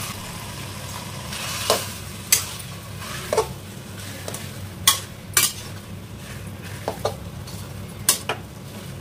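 Flat metal spatula scraping and knocking against a steel kadhai while stirring and breaking up a lump of mawa (khoya). The strokes are sharp and irregular, about a dozen of them, starting about two seconds in.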